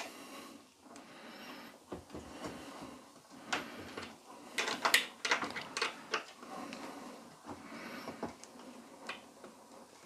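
Clicks and scrapes of a small T15 key turning a screw in a dishwasher's metal side panel, with a cluster of sharp ticks about four to six seconds in. The screw is stiff and hard to shift.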